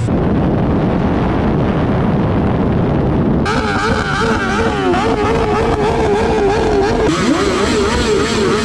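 Loud motor-vehicle engine noise. About three and a half seconds in, a wavering tone joins it, rising and falling in pitch over and over.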